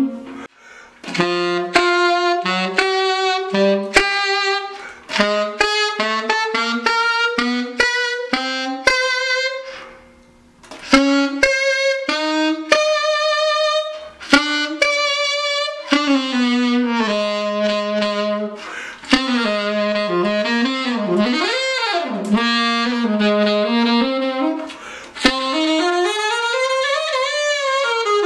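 Alto saxophone with a bronze ring ligature playing a melody of short and held notes. It pauses briefly about a second in and again around ten seconds in, and bends and slides the pitch in the last several seconds.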